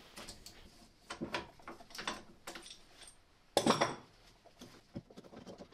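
Irregular metal clicks and knocks as a spring compressor is wound off the strut's coil spring to release its tension, with one louder clunk about three and a half seconds in.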